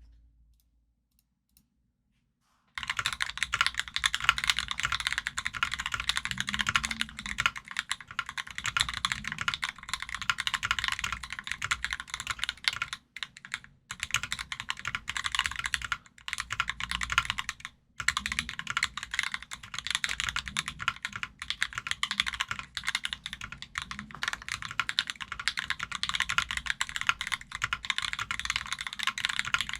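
Fast typing on an NK65 aluminum-case mechanical keyboard with Durock Smokey Black 67g linear switches lubed with Krytox 205g0 and PBT keycaps. Silent for the first few seconds, then a dense stream of keystrokes with a few brief pauses.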